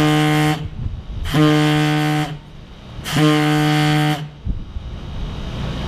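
Three long blasts of a deep warning horn, each about a second long at one steady pitch, evenly spaced: the signal sounded before the demolition charge is set off.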